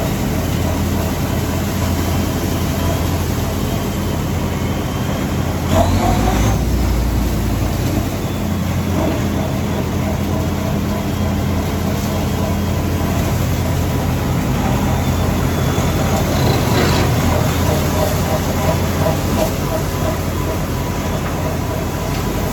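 Heavy farm machinery engine running steadily with a low hum, with a brief louder surge about six seconds in and again around seventeen seconds.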